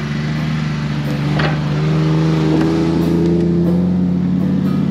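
Kei mini truck's small 660cc engine running at low revs on an off-road trail. It grows louder over the first two seconds, with a sharp knock about a second and a half in.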